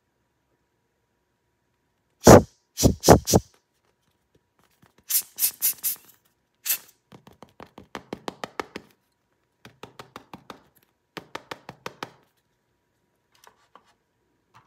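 Hard plastic clicks and clacks as a plastic toy is handled over a plastic tray: a few loud sharp clacks, then three runs of quick light ticks.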